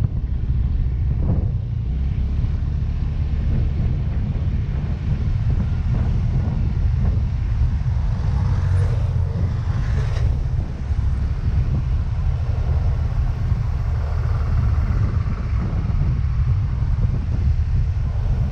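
Wind buffeting the microphone over the steady running of a Yamaha Mio Gravis scooter's single-cylinder engine while riding. Something brief rises and fades around the middle.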